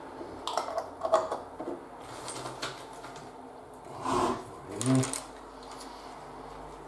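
Small wooden shingles clicking and clattering as they are handled and picked from a pile, with a run of light clicks in the first two seconds and two louder clatters about four and five seconds in.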